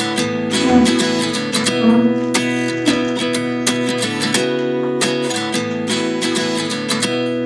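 Background music: a guitar strummed in a steady rhythm of chords.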